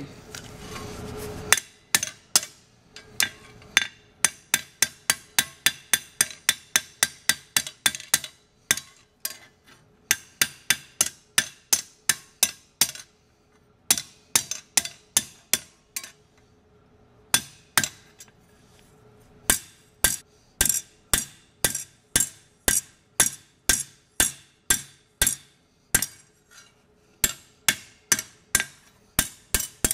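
Ball peen hammer striking a mild steel flat bar on an anvil, dimpling it to give it a hammered, forged look. After a brief rattle at the start, the blows come in quick runs of about two to three a second, broken by short pauses, with a faint steady metallic ring under them.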